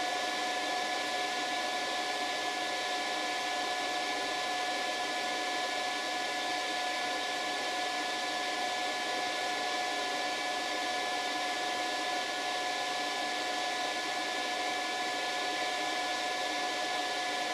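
Power inverter running a load of about 260 watts: a steady fan whir with a steady high whine over it.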